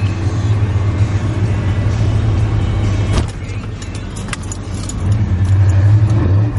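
A 1991 Chevrolet 1500 pickup on the move: a steady low drone of engine and road noise that drops off about three seconds in and builds again near the end, with light clicks and rattles over it.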